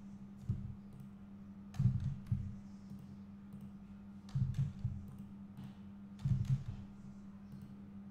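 Computer mouse and keyboard clicks, about five short clusters of clicks with dull low knocks, over a steady low electrical hum.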